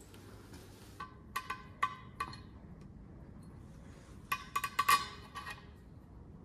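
Bolts and hand tools clinking against metal as bolts are put in on the underside of a tractor engine: a few sharp clinks about a second in, then a quicker cluster of clinks a little after four seconds in.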